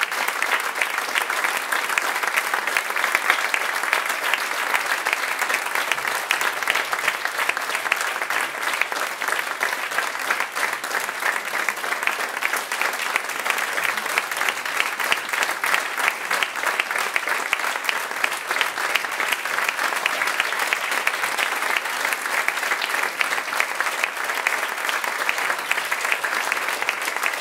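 Audience applauding: many hands clapping together in a steady, dense clatter.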